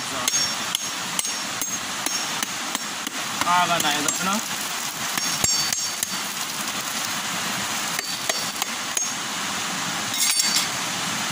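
Machete blade striking a coconut again and again to crack it open: sharp whacks about two a second at first, then more spread out, with a quick cluster near the end. Steady rushing river water runs behind.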